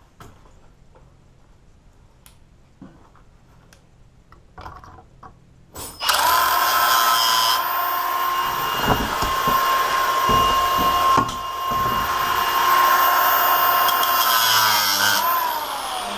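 A handful of faint handling clicks, then about six seconds in a cordless angle grinder starts and cuts into a half-inch security chain clamped in a vise, a loud steady whine with grinding. Near the end the trigger is released and the grinder spins down with a falling whine.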